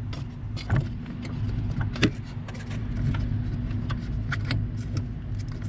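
Scattered plastic and metal clicks and knocks from a brake light switch being worked onto the brake pedal pin and rod, the sharpest about two seconds in, over a steady low hum.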